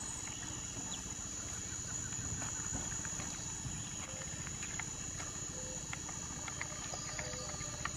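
Insects chirring steadily in the background, one high unbroken tone, over a faint outdoor hush.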